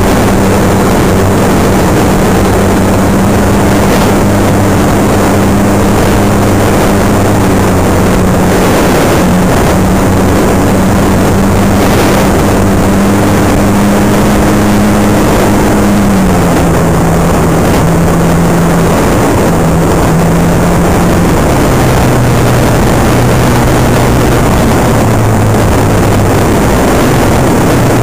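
Onboard sound of a Super Cub park-flyer RC plane's electric motor and propeller in flight, picked up right behind the propeller with wind rushing over the microphone. The motor's steady hum drops in pitch about halfway through and again a few seconds later as the throttle is eased back.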